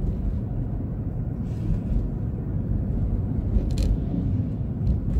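Jeep Grand Cherokee's 5.7 HEMI V8 running on four cylinders with its Multi-Displacement System engaged, heard from inside the cabin as a steady low rumble. The exhaust resonator has been removed, yet the engine stays quite smooth in four-cylinder mode.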